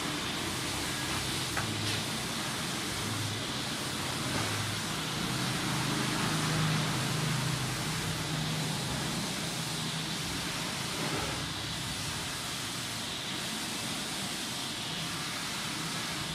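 Steady background noise hiss with a faint low rumble that comes and goes.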